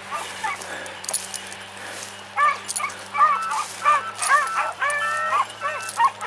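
Several beagles baying and yelping in quick overlapping cries, starting about two seconds in, while running.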